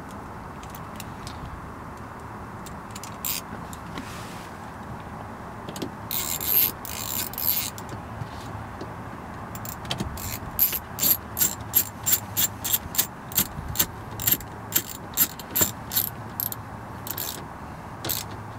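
Hand screwdriver with a Torx T20 bit driving screws back into a car's under-dash trim pad. Scattered clicks and a short rattle of handling come first, then a regular run of sharp clicks, about two a second.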